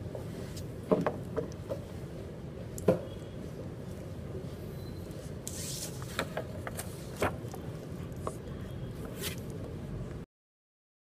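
Sheets of paper being handled at a desk: rustling and a scatter of small taps and knocks against the desk over steady room noise. The sound cuts off suddenly near the end.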